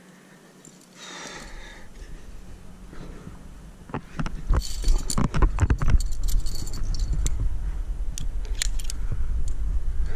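Aluminium quickdraws and carabiners on a climbing harness jangling and clinking as the climber takes gear from the harness. There is a quick run of metal clicks between about four and seven seconds in, and a few more near the end, over a steady low rumble.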